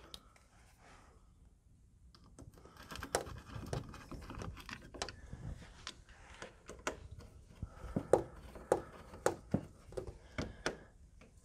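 Hand screwdriver driving small screws to fasten a sash lock onto a window sash: irregular small clicks and scrapes that start about two seconds in.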